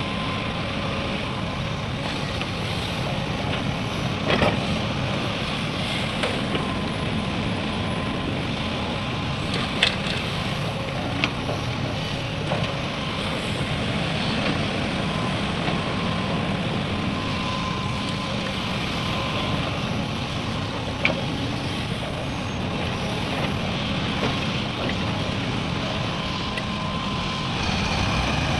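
Heavy diesel machinery, excavator and dump truck engines, running steadily, with a few sharp knocks now and then.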